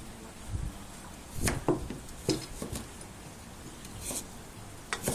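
Kitchen knife cutting taro on a round wooden chopping board: a handful of short, sharp knocks of the blade on the wood at uneven intervals.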